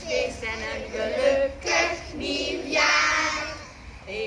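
A group of young children singing together as a choir, with a short pause in the singing near the end.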